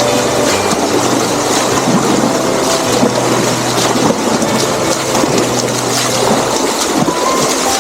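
Water rushing at a dam, a loud, steady wash of noise. Low humming tones sit underneath, changing pitch every second or two.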